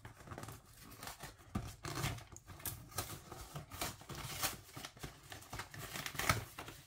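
Cardboard food box being torn open by hand: a run of irregular crackling rips as the glued flaps come apart, then rustling as the wrapped pie is drawn out near the end.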